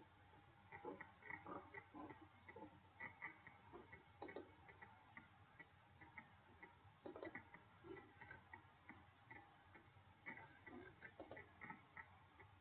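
Faint, irregular clicking and ticking of a computer mouse, its buttons and scroll wheel, over a low hiss.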